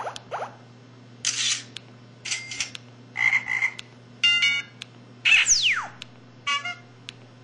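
LG-SD210 mobile phone playing its built-in sound effects one after another: quick rising chirps, then a string of short noisy and beeping effects, including a steep falling whistle about five and a half seconds in.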